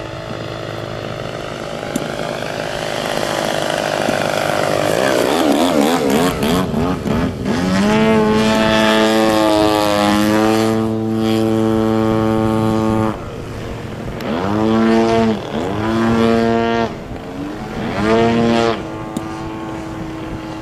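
Gas engine and propeller of a large radio-controlled aerobatic airplane in flight. A few seconds in, its pitch wavers and falls as it passes, then it runs at high throttle for about five seconds before cutting back. Near the end it is throttled up in three short bursts, each rising in pitch, and settles to a lower steady note.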